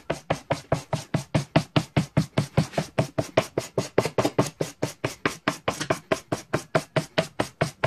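Sandpaper on a hand-held block rubbed back and forth along a steel gladius blade in rapid, even strokes, about five or six a second.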